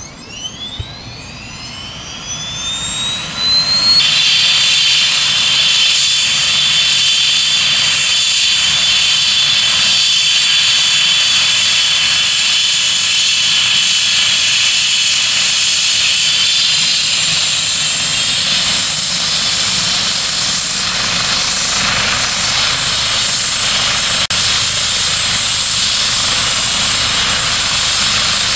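Eurocopter EC135 air-ambulance helicopter's turboshaft engines starting up. A whine rises steeply in pitch over the first few seconds and settles into a steady high-pitched whine with rushing rotor noise as the rotor runs up before takeoff.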